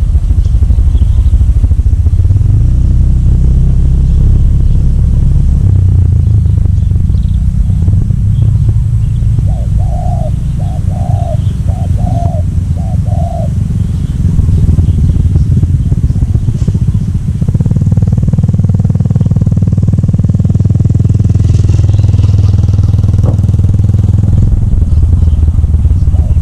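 A steady low engine rumble runs throughout. Over it a dove coos a quick run of about six short notes from about ten seconds in.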